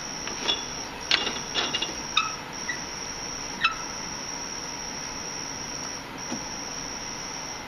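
Metallic clicks and clinks from turning the vise hand wheel of a Wellsaw 1118 horizontal band saw, which drives the movable jaw up against the steel workpiece. The clicks bunch in the first few seconds, over a steady high-pitched whine.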